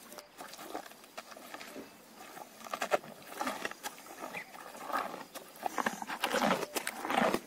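Cow chewing raw vegetables close to the microphone: irregular wet crunching and smacking. It grows louder from about five seconds in as the cow's muzzle comes up to the microphone.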